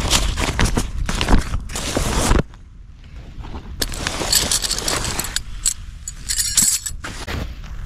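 Nylon backpack fabric and stuff sacks rustling as hands rummage inside the pack and pull gear out, loud and close with a low rumble for the first couple of seconds, then quieter. A short run of quick fine clicks comes a little past the middle.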